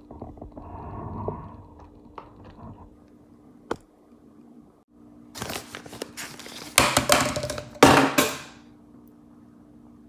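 Crinkling packaging rustled in loud bursts, strongest about seven and eight seconds in, as shredded mozzarella is readied to sprinkle over the buns. Before that come soft scraping and a single sharp tap, all over a faint steady hum.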